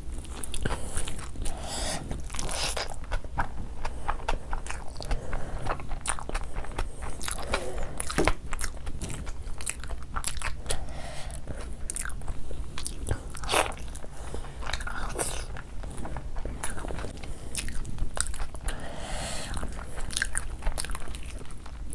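Close-miked eating sounds: a person chewing a mouthful of rice and mutton curry, with many irregular wet mouth clicks and lip smacks, and the hand squishing the rice and curry.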